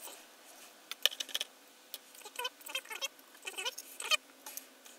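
Small plastic parts of an Airfix 1:72 Lightning kit being handled and fitted to the plastic airframe: light, irregular clicks, taps and short scratchy rubs.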